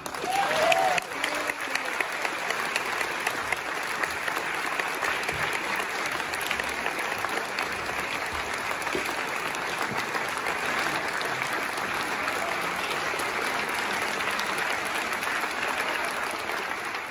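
Audience applauding steadily, many people clapping together, at the end of a choral piece.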